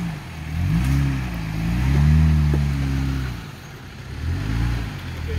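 Jeep Gladiator pickup's engine revving up and falling back in repeated bursts as it crawls over rocks, with the longest and strongest rev about two seconds in.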